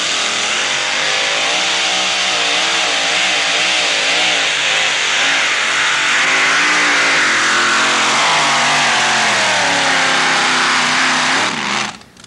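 Modified two-wheel-drive pulling truck's engine at full throttle hauling a pull sled, its pitch wavering up and down through the run. It cuts off suddenly near the end as the pull stops.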